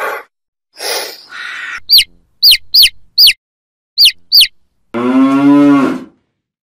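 Two short, noisy calls from an unidentified animal, then a baby chick peeping: six sharp, high chirps that fall in pitch, four in quick succession and two more about a second later. Near the end a cow moos once, for about a second.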